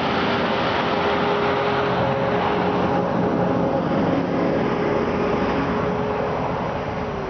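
Road traffic going by: steady tyre and engine noise with one held hum, easing off near the end.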